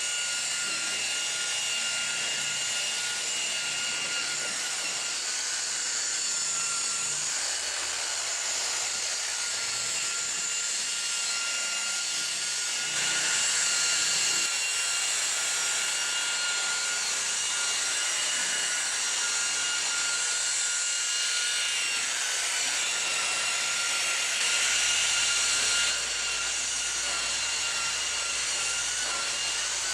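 Electric paint polisher running steadily with a constant high motor whine while buffing painted panels, getting a little louder twice for a second or two.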